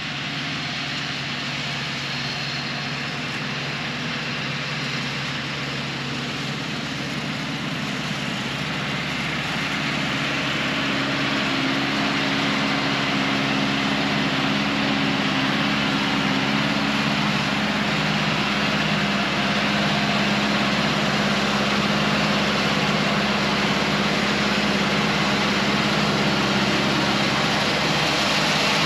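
John Deere tractor engine running steadily as it pulls a wheel rake and round baler across the field, growing louder as it approaches.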